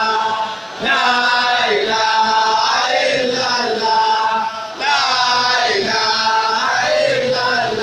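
A crowd of men chanting dhikr together, one phrase sung over and over, about four seconds to each phrase, with a brief breath-pause between phrases.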